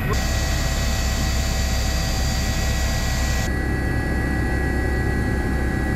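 Helicopter noise heard from inside the cabin: a steady low drone with a few steady high tones and hiss. About three and a half seconds in the high hiss drops away abruptly, as at a cut between shots.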